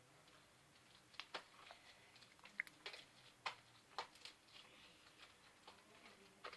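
Near-quiet room with about half a dozen faint, scattered clicks and taps.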